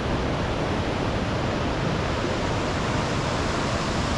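Mountain stream rushing steadily down rock slabs in a small cascade.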